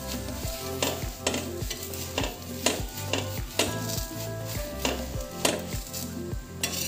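Background music with a steady beat, a bit over two beats a second, over the faint sizzle and scrape of a metal spatula pressing a roti on a hot iron tawa.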